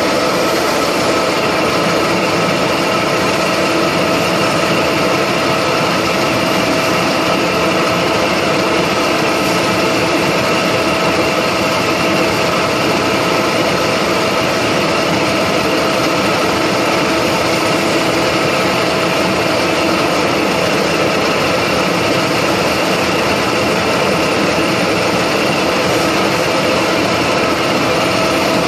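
Milling machine running steadily, its spiral end mill side-cutting a hexagon flat on a metal fitting: an even machine hum with several fixed tones over the cutting noise.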